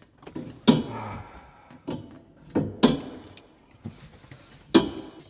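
Metal roll cage tube clunking and knocking against its mounts as it is forced into place, several uneven knocks with the loudest about a second, two and a half, three and five seconds in.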